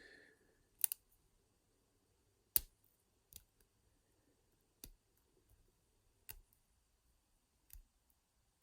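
Sharp metallic clicks of a lock pick and tension tool working the pin-tumbler keyway of an all-brass Yale 40mm padlock during picking: about six separate clicks spaced irregularly, a second or more apart.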